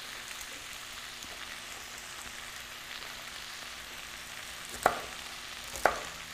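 Pork belly and dried tofu strips sizzling steadily in a wok, with two sharp chops of a knife through celery onto a plastic cutting board about a second apart near the end.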